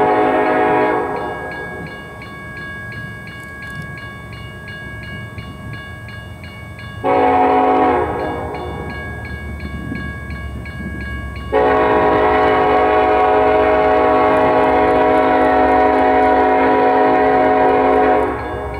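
A freight locomotive's air horn sounding the grade-crossing signal as the train approaches: a long blast ends about a second in, a short blast follows near the middle, and a final long blast lasts about six seconds. A crossing-signal bell rings steadily under it, over a low rumble from the train.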